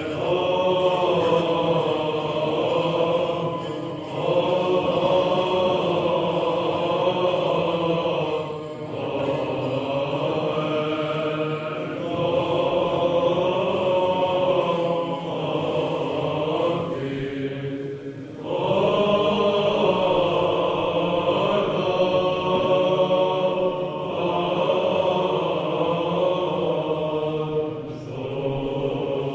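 Orthodox chant, sung in long held phrases of a few seconds each with brief pauses between them, over a steady low sustained tone.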